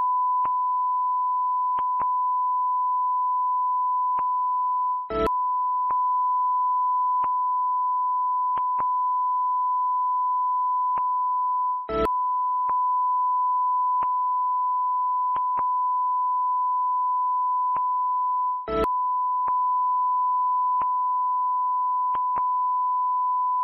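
A steady electronic beep tone, one pure unbroken note at about 1 kHz, broken by a short click three times, about seven seconds apart.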